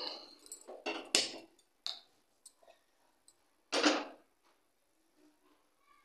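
Kitchen utensils being handled: a few short knocks and clatters, the loudest about four seconds in, as a metal pan is set on a gas stove.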